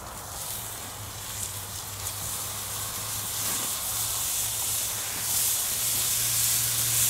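Marinated meat sizzling on a hot gas grill grate as beef tenderloins are laid on, the sizzle growing louder from about five seconds in. A steady low hum runs underneath.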